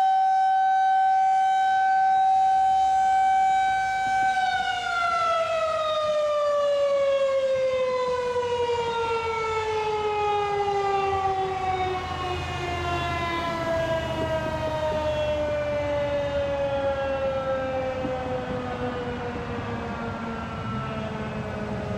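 Federal Signal 2001-SRNB electromechanical outdoor warning siren holding its steady single alert tone, then, about four seconds in, winding down at the end of its one-minute alert, the pitch falling slowly and smoothly. A low rumble sits underneath as it winds down.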